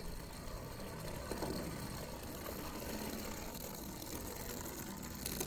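Two die-cast toy cars rolling along a toy race track in a race, making a steady rattling rumble with a few light clicks.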